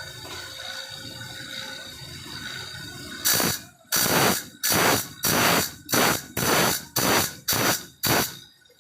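A file rasping across the steel teeth of a hand saw during sharpening, about nine quick, evenly spaced strokes starting about three seconds in.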